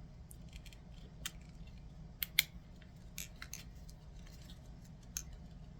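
Scattered small clicks and clinks of plastic and metal parts as a digital power meter is taken apart by hand and its circuit board worked loose, a few sharper snaps about two seconds in, over a steady low hum.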